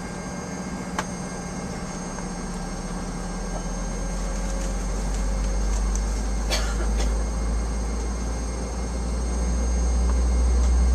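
Cabin noise inside a Boeing 757 on the ground: a steady engine hum with faint high whines, and a deep rumble that builds up from a few seconds in. A sharp click comes about a second in and a brief rattle near the middle.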